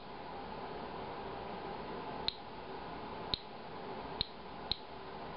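Inspector Alert Geiger counter clicking, four sharp clicks at irregular intervals in the second half, one per detected radiation count, over a faint steady hiss. The slow click rate is a count near background level.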